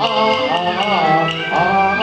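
Cantonese opera music: a sliding, wavering melody line over the ensemble, with light percussion taps.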